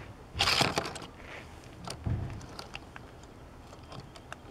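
Short clatter of a die-cast toy car being handled and set down on a plastic track about half a second in, then a duller thump about two seconds in and a few faint ticks.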